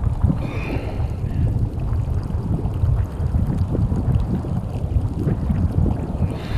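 Wind buffeting the microphone: a constant, gusty low rumble.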